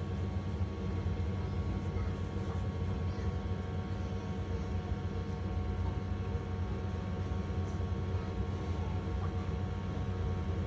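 A steady low hum with no distinct events.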